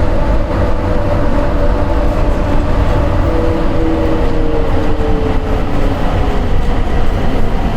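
Airport people-mover train running: a loud, steady low rumble with a thin whine that slowly falls in pitch through the middle.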